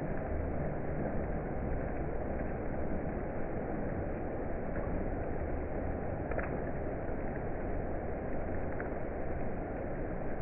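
Thunderstorm ambience: a steady, even wash of noise with a low rumble underneath and no distinct claps. A faint click comes about six seconds in.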